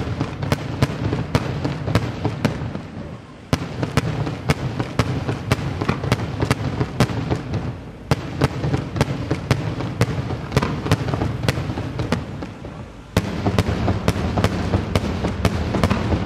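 Daytime fireworks barrage of coloured-smoke shells: a rapid run of sharp bangs, several a second, over continuous crackling. The barrage dips briefly and starts again suddenly about three and a half, eight and thirteen seconds in.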